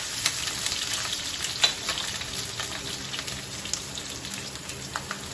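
Chopped garlic, ginger and green chilli sizzling and crackling in hot coconut oil in a non-stick pan, with a spatula stirring them in the first couple of seconds; the sizzle then runs on steadily, easing slightly.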